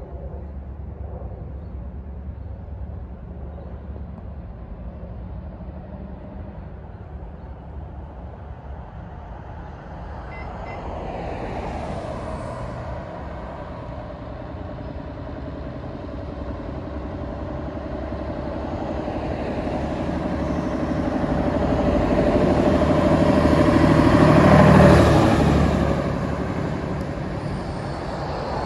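A bus engine running, growing steadily louder over about twenty seconds as it approaches, loudest near the end as it passes, then fading.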